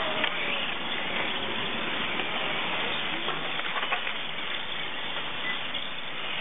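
Electric 1:18-scale radio-controlled touring cars racing on an asphalt track: faint rising and falling motor whines over a steady hiss.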